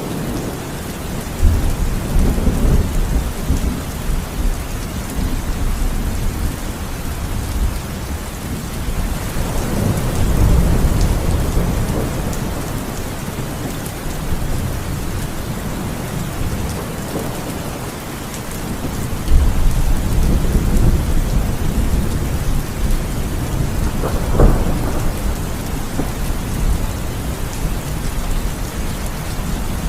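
Heavy rain pouring steadily, with low thunder rumbling up and fading away several times. A sharper crack of thunder comes late on.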